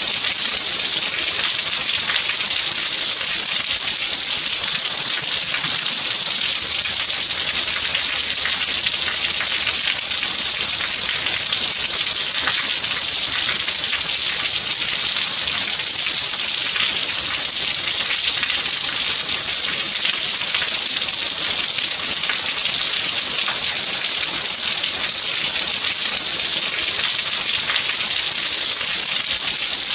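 Steady rain falling: an even, unbroken hiss with the patter of many individual drops, no thunder.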